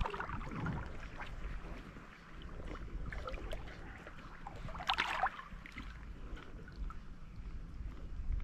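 Water lapping and wind rumble around a small boat, with scattered small knocks and a brief louder splash-like burst about five seconds in.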